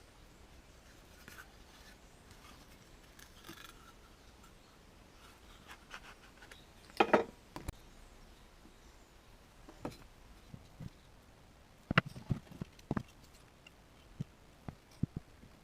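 Quiet hand work with scattered light knocks and clicks, as wooden pieces are handled and set down. The loudest comes about seven seconds in, and there is a cluster of sharp clicks near twelve to thirteen seconds. No power saw is running.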